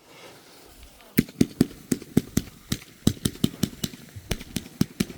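A string of firecrackers going off: sharp cracks in quick, uneven succession, about five a second, starting about a second in.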